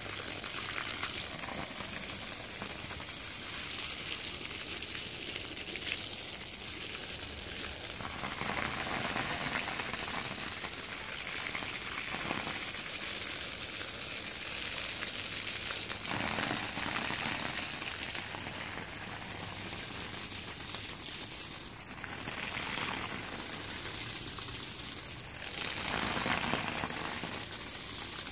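A stream of water pouring onto a thick shag rug and splashing, with swells in loudness as the stream moves across the pile.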